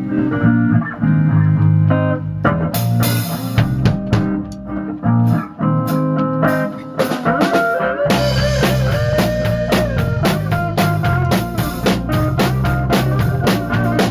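Rock band playing: electric guitar over bass, with drums and cymbals coming in about two and a half seconds in, and the band growing fuller with a held lead guitar line from about eight seconds in.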